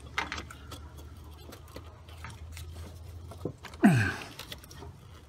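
Scattered light clicks and taps of hoses and fittings being handled as radiator line connections are fitted, over a low steady hum. Near the end comes a short grunt that falls in pitch.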